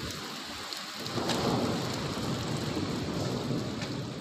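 Rain falling steadily on hail-covered pavement, an even hiss of drops, with a low rumble building about a second in.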